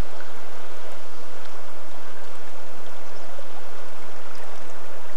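Flowing river water rushing steadily, a loud even wash with no pauses.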